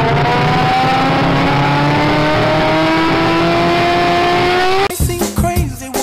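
Motorcycle engine sound effect accelerating, its pitch rising steadily. It cuts off suddenly about five seconds in and upbeat music starts.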